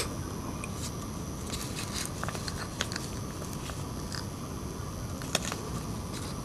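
Faint scattered clicks and rustles of hands handling a phone charger's circuit board and cable, with a sharper click about five seconds in, over a steady background hiss.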